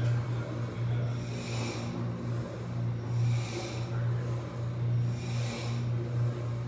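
Breathing close to the microphone, a hissy puff of breath about every two seconds, over a steady low hum.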